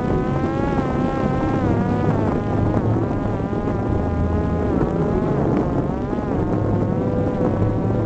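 Parrot Disco fixed-wing drone's electric pusher motor and propeller whining in flight over a steady rush of wind. The whine's pitch wavers up and down as the throttle shifts.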